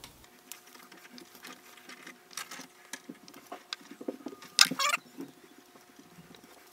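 Small irregular taps, clicks and rustles of soft-plastic bait tails being cut apart and pressed into an aluminium bait mould, with a louder double scrape a little before the five-second mark. A faint steady hum runs underneath.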